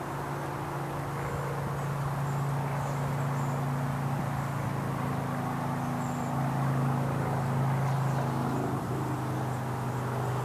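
Steady low engine hum from a distant motor, its pitch drifting slowly, with faint high bird chirps over it.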